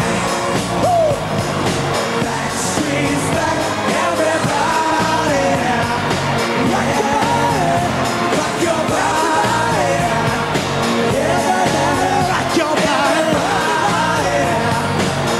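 Live pop music: a male boy-band's singing over a full music track with a steady beat, with a crowd yelling.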